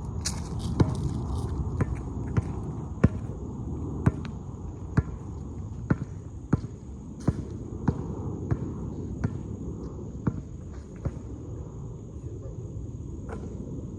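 A basketball being dribbled on a hard court, one sharp bounce about every two-thirds of a second, the bounces growing sparser near the end.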